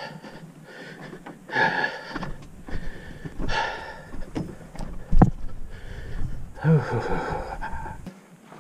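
A person breathing hard in heavy, breathy exhalations, winded after a long, steep portage. There is a single sharp knock about five seconds in.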